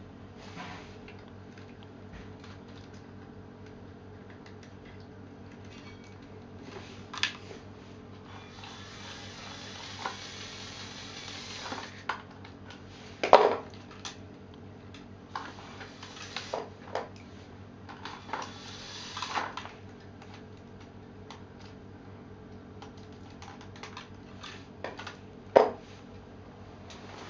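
Hard plastic Lego Technic parts clicking, knocking and clattering as they are handled, with two sharp knocks standing out and two stretches of rustling, over a steady low hum.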